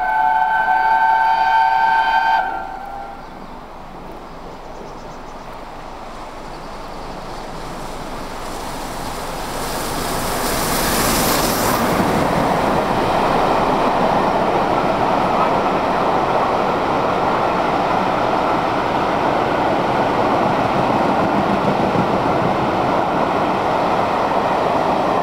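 Peppercorn A1 4-6-2 steam locomotive 60163 Tornado sounding its whistle, several notes held together for about two and a half seconds. The locomotive then approaches, its noise building to a peak about eleven seconds in as it passes directly below, followed by the steady noise of its train running on the rails.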